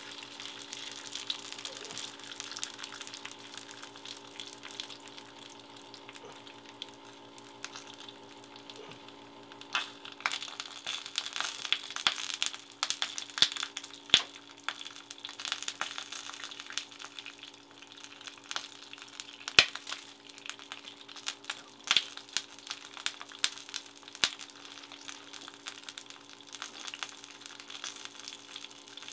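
Split, air-dried rockfish frying in oil in a nonstick pan: a steady sizzle with scattered crackles and pops, which become louder and more frequent about a third of the way in.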